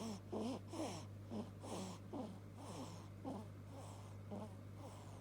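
Fast, wheezy snoring: short snores about twice a second, each falling in pitch, over a steady low hum.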